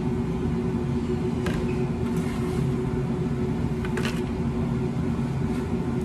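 Steady low hum and rumble of running commercial-kitchen equipment, with two faint clicks about a second and a half and four seconds in.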